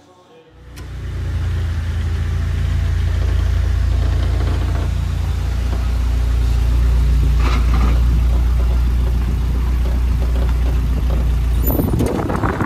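Iron Duke four-cylinder engine of a hot rod Model T roadster pickup running steadily, coming up out of near quiet about half a second in.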